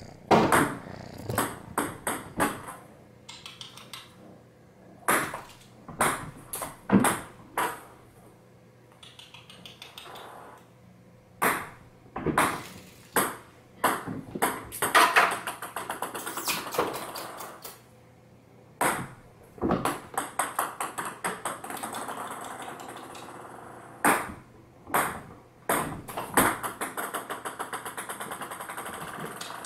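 Ping pong balls bouncing on a hardwood floor: sharp clicks come in repeated runs, each run quickening as a ball settles.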